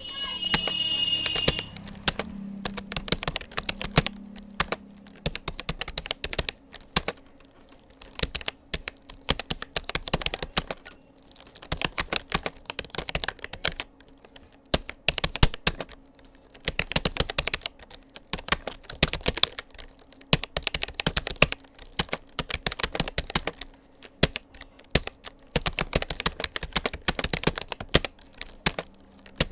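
Rapoo computer keyboard being typed on at a steady practice pace, a rapid run of key clicks broken by a few short pauses. A brief high-pitched tone sounds over the typing during the first second or two.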